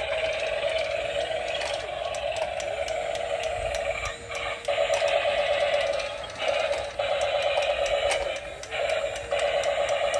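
Tinny electronic music, thin and without bass, that drops out briefly a few times.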